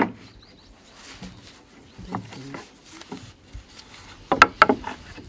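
Knocks and taps on wood during carpentry: a sharp click at the start, scattered light taps, then a quick run of four or five louder knocks about four seconds in.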